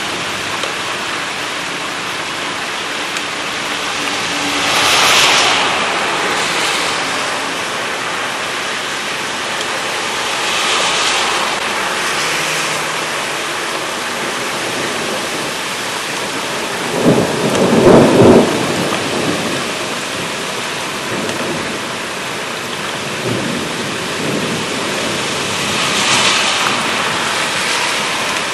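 Heavy rain falling steadily in gusty wind, swelling louder several times, with one loud burst of thunder about two-thirds of the way through.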